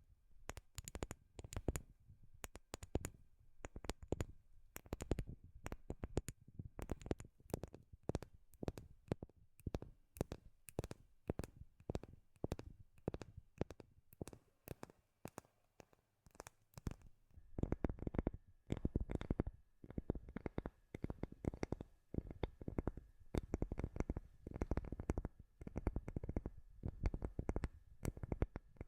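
Fingertips and nails tapping rapidly on wood, several taps a second in uneven clusters, with a brief pause about halfway through.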